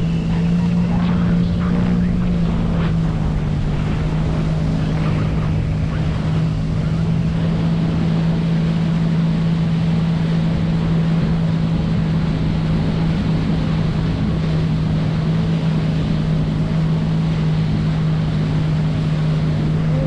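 Jet ski engine running at a steady, even pitch, with wind and water noise rushing over it.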